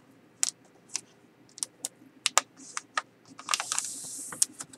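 A sheet of paper being folded down into a wing and creased: scattered crackles and taps, with a longer rustle about three and a half seconds in.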